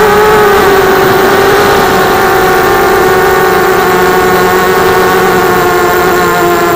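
Quadcopter's four RCTimer 2206 2300kv brushless motors and propellers whining in flight, recorded from on board, over a rush of air. The whine wavers a little in pitch near the start, then holds steady.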